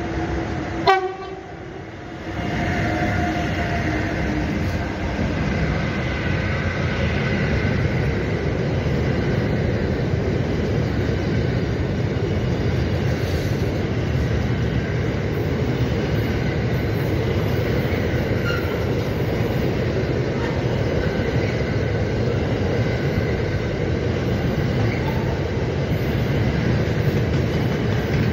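An electric-hauled container freight train passing close by: a sharp loud knock about a second in, then the steady rumble and rattle of the wagons' wheels on the rails as the loaded container cars roll past, with some pitched tones fading out in the first few seconds.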